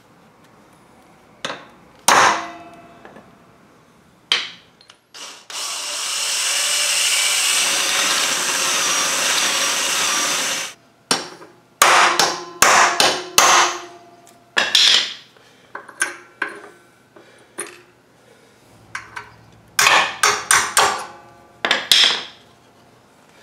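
Hammer blows on a steel center punch marking the kickstand's rivet heads, then a cordless drill running for about five seconds as it bores out a factory rivet, followed by bunches of sharp metal knocks and taps as the rivets and the worn rubber pad are worked loose.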